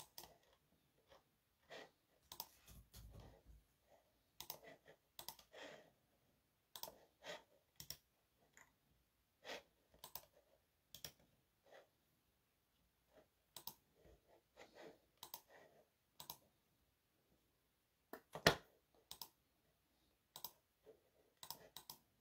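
Faint, irregular clicks and taps, some in short clusters, with one louder click about eighteen seconds in.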